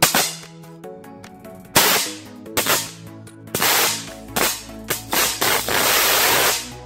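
High-voltage arcs from a microwave oven transformer with a capacitor across its output, drawn with a chicken stick: several sharp cracks, then from about four seconds in a continuous arc lasting over two seconds with a low hum beneath it, cutting off near the end.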